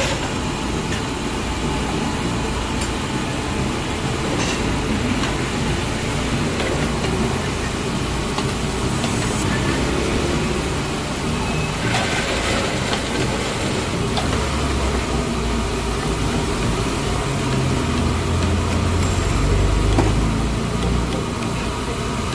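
Chicken pieces deep-frying in a large pot of bubbling oil, a steady sizzle. A low rumble joins in from about the middle to near the end.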